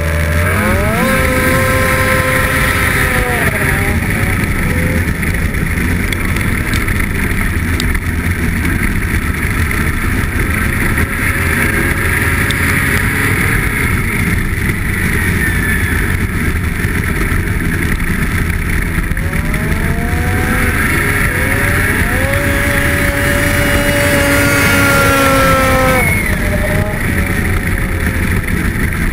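Two racing snowmobiles, one a Polaris 500XC, revving hard and running at high revs, the engine pitch climbing in long rising whines as they pull away and again later on. The sound changes abruptly near the end.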